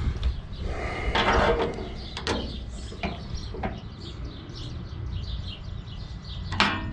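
Rustling and a few light clicks as the small metal rods and parts of a trunk lock kit are handled and sorted, with birds chirping faintly in the background.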